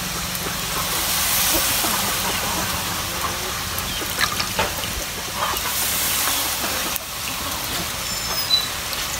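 Fresh miki egg noodles frying in a wok over a wood fire, with a steady sizzling hiss of steam. A few drips and splashes come around the middle as wet noodles are squeezed out over a bowl of water.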